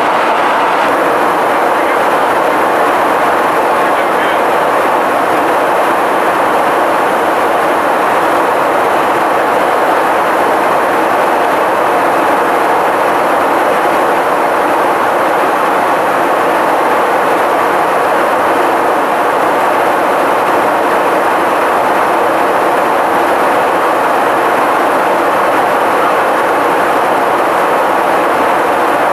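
Steady jet aircraft noise in flight, engines and rushing air heard from aboard an aircraft flying with the formation; even and unchanging throughout.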